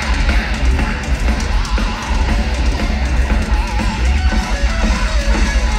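Live heavy metal concert recording: a distorted electric guitar lead played through a wah pedal, over bass and drums.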